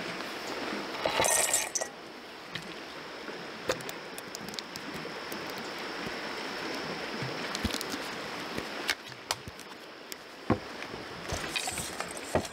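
Steady rushing of river water, with scattered sharp clicks and light clinks over it and a louder, brighter burst about a second in.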